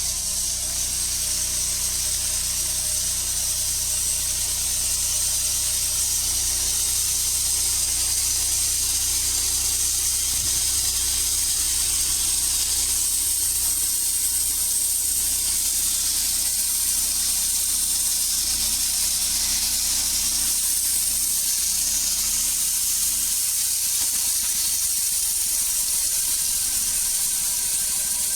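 Sawmill running steadily while cutting a timber beam: a constant hiss from the cut over a low, even engine hum.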